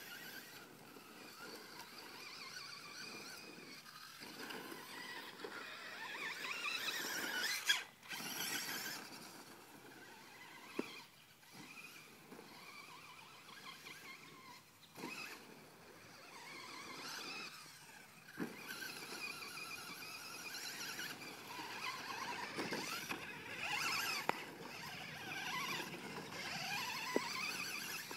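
Traxxas Slash RC truck's Hobbywing 13T 3000kV electric motor whining, its pitch rising and falling again and again as it accelerates and slows, with a few sharp knocks along the way.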